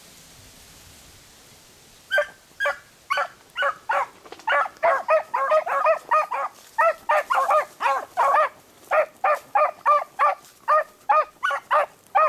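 Beagles baying while trailing a rabbit's scent: a quick run of short, pitched bay notes that starts about two seconds in and goes on at about three a second, two dogs' voices overlapping in the middle.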